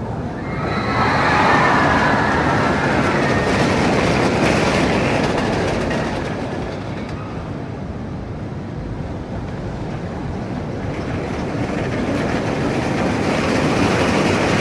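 Roller coaster train running along steel track: a continuous rumble and rush that swells about two seconds in and again near the end.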